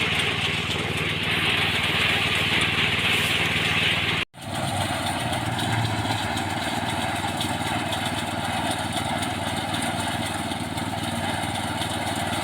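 Small engine of a rice threshing machine running steadily. Just over four seconds in, the sound cuts out abruptly for a moment and comes back with a different, lower tone.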